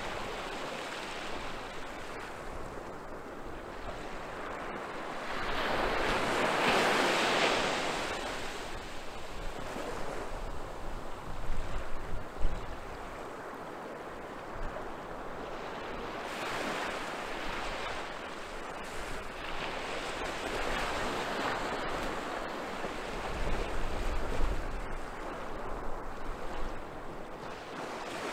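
Small waves breaking and washing up a sandy beach, the surf swelling and fading every several seconds. Wind buffets the microphone twice, near the middle and near the end.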